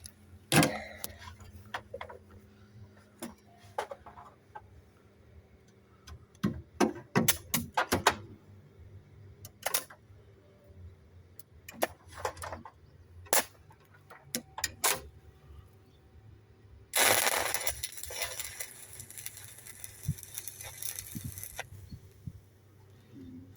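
Scattered metallic clicks and knocks of tools and steel being handled, then a steady hissing, crackling noise lasting about four and a half seconds, about two thirds of the way in.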